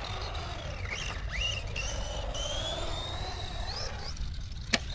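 Small 2430-size brushless electric motor of a LaTrax Teton RC truck whining, its pitch sliding up and down with the throttle. A single sharp knock near the end, with wind rumbling on the microphone throughout.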